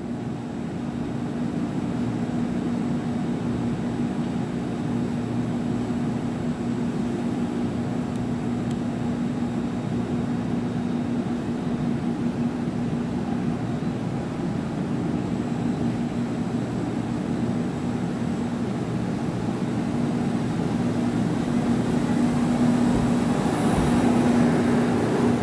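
Limited express Kamome electric train pulling out of the station, a steady electric hum over rumbling rolling noise that swells louder near the end.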